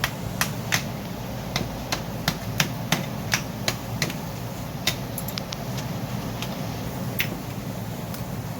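Irregular sharp clicks and taps of hand tools and brake parts being handled, a dozen or so, thinning out after the first few seconds, over a steady low background hum.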